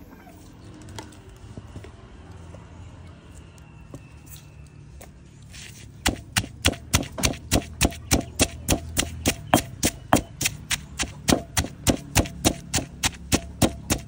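Knife chopping on a cutting board in a steady run of quick strokes, about three a second, starting about six seconds in.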